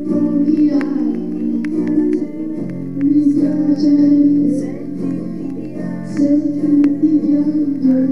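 Music playing from a vinyl record: a song with plucked guitar notes over held tones.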